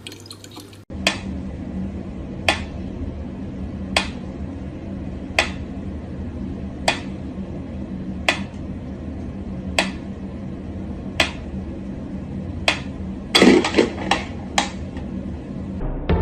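Sharp, hard taps repeating evenly about once every second and a half over a steady low hum, with a quick flurry of several knocks near the end.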